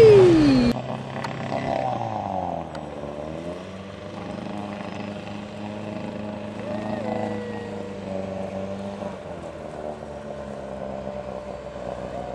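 Outboard motors of speedboats, one a Fletcher Bravo, running at speed. It opens loudest, with the engine note falling sharply in pitch as a boat passes close, then cuts off abruptly less than a second in. A quieter, farther engine drone follows, its pitch bending up and down as the boats turn.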